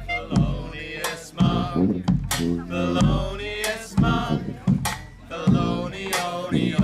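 Small brass band music: a bass drum beaten about once a second under a man singing, with trombone and clarinet playing along.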